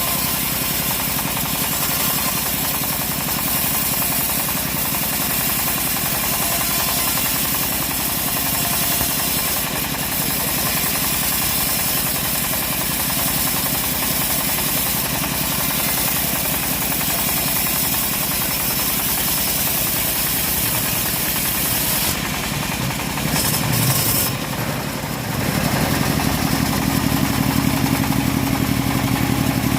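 The engine-driven saw of a homemade sawmill rig running steadily while it rips teak. About 22 seconds in its sound changes, and from about 25 seconds it settles into a steadier hum with a clear pitch.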